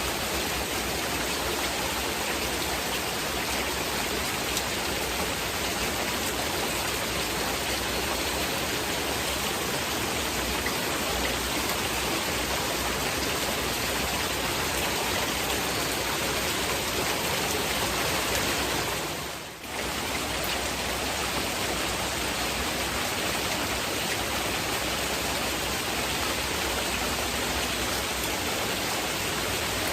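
Steady heavy rain, an even hiss of falling water, with a brief dip in level about two-thirds of the way through.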